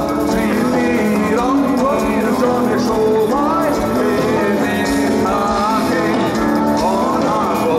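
Heavy metal band playing live through a concert PA: distorted electric guitars and drums, with a melody line bending in pitch above them.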